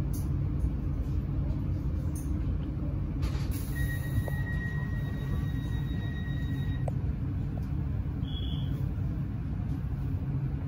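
Steady low rumble of a stationary passenger train's onboard equipment idling, heard inside the carriage. About three seconds in there is a short hiss, then a steady high tone for about three seconds, and a brief higher beep a little later.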